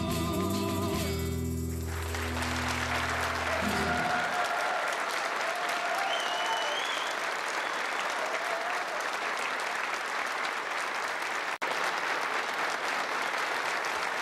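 The final sung note and the band's held closing chord of a song die away about four seconds in, as a large audience breaks into applause, with a few shouts rising over the clapping. The sound drops out for an instant about three-quarters of the way through.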